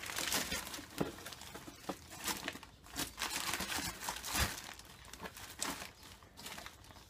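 Wrapping crinkling and rustling as gift packages are handled and unwrapped, in irregular bursts with a few louder crackles.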